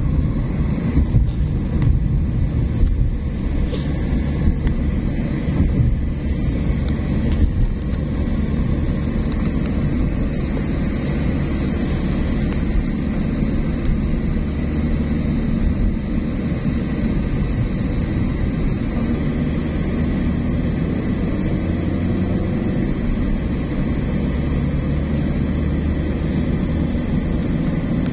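A car driving along: a steady, low engine and road rumble, with a few faint clicks in the first several seconds.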